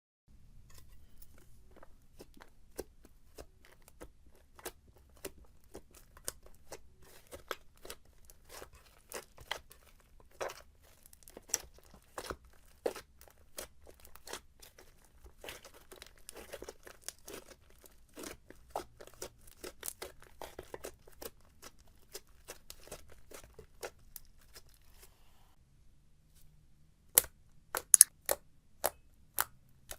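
Slime being squeezed and worked by hand: a dense, uneven run of small crackles and pops. Near the end come several louder, sharper snaps.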